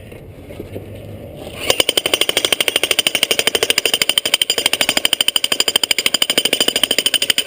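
Bosch electric jackhammer breaking rock. It starts about a second and a half in and runs on with rapid, even hammer blows.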